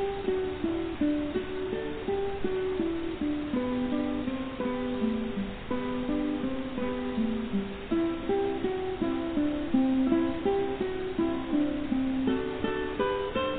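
Background instrumental music: a plucked string instrument playing a melody of short notes.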